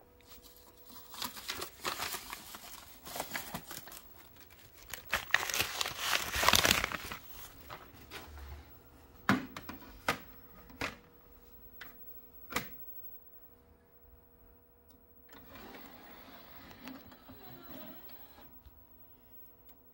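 A 12-inch laserdisc being handled and slid from its paper sleeve, crinkling and rustling, then a few sharp clicks as it is set down on the open tray of the laserdisc player. Near the end the player's tray mechanism runs for a few seconds.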